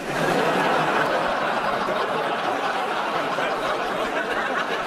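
Studio audience laughing at a punchline. The laughter breaks out all at once and holds at a steady level.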